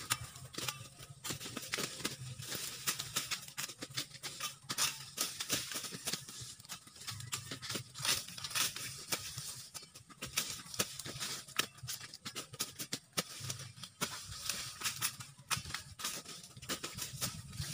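Machete chopping sugarcane stalks near the base, with many short, sharp cracks and the rustle and snap of dry cane leaves as the cut stalks are pulled free.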